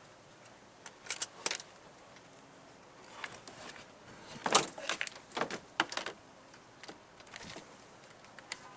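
Irregular clicks and short clatters of small hard objects being handled, the loudest cluster about halfway through.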